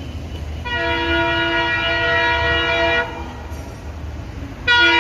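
Air horn of an approaching ALCo diesel locomotive sounding two blasts of steady pitch. The first starts under a second in and lasts a little over two seconds; the second, louder one begins just before the end and carries on.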